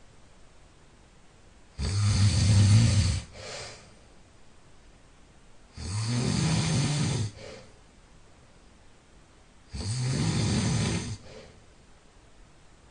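A person snoring loudly in deep sleep: three long snores about four seconds apart, each lasting about a second and a half and followed by a short, fainter tail.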